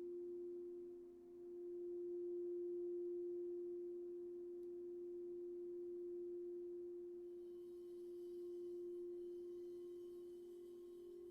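Singing bowl holding one steady, low, pure tone that slowly swells and fades in volume; a second, slightly higher tone joins near the end.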